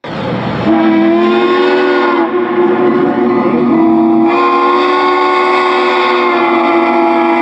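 Steam locomotive chime whistle blowing one long chord of several notes. It opens with a hiss of steam, and the chord shifts slightly about two and four seconds in.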